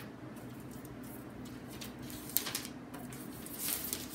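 Protective plastic film being peeled off the aluminium underside of a MacBook Pro: faint rustling and crinkling of the film, with a few light clicks about two and a half seconds in and a brief louder rustle near the end.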